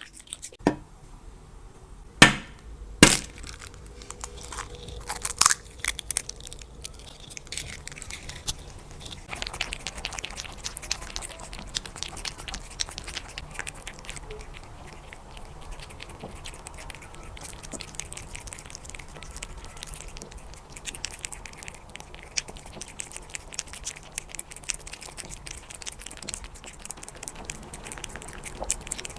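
A silver shaded British shorthair cat eating, with a continuous run of small crunching and clicking sounds and a few sharper cracks in the first six seconds.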